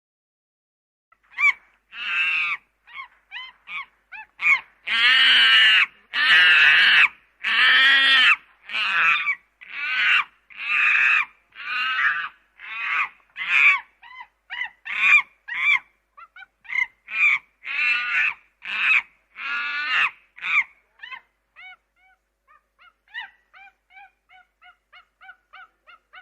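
A monkey calling in a long series of pitched calls, about one or two a second, loudest in the first half, then trailing off into quicker, fainter short chirps over the last few seconds.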